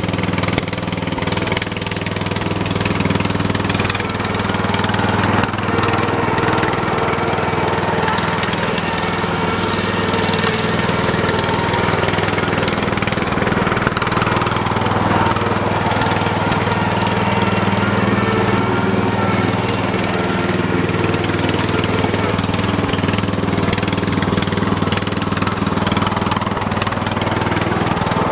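Briggs & Stratton 13 hp single-cylinder OHV engine on a lawn tractor, running steadily while the tractor is driven around. The owner suspects water in the carburetor float bowl is making it run rough.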